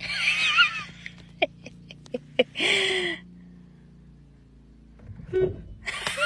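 Cat meowing: a wavering high call at the start and a shorter call about two and a half seconds in, with a few light clicks between and a low steady hum underneath.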